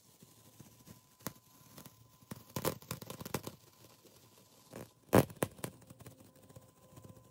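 Masking tape being peeled off an acrylic-painted canvas: crackling, ripping bursts, with one sharp snap, the loudest, about five seconds in.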